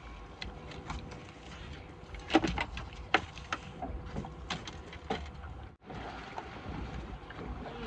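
Scattered knocks and rattles of a landed fish and landing net being handled in a small fishing boat, over a low steady wind rumble. The loudest knocks come about two and a half and three seconds in.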